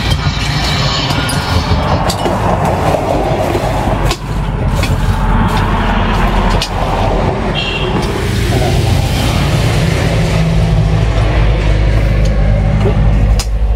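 A steady, low, engine-like hum that grows stronger about halfway through, with a few scattered knocks.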